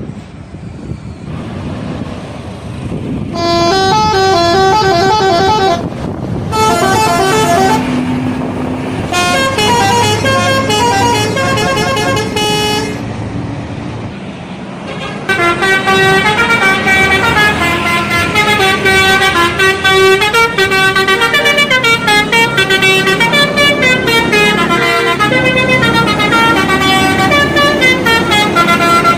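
Indonesian bus telolet horns: multi-tone horns playing quick melodic runs of notes. Three short bursts come first, then the horns play almost nonstop through the second half.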